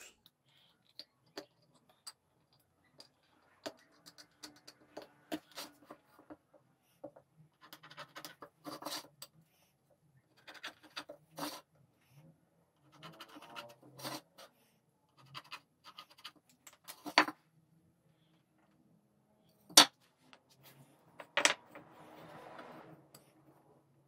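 Marking lines on an MDF board: short scratchy strokes in bursts as the corners are laid out for rounding, with a few sharp taps of a tool set down on the board.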